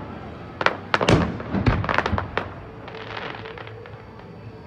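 Aerial fireworks shells bursting: about half a dozen sharp bangs in the first half, then a fainter crackling.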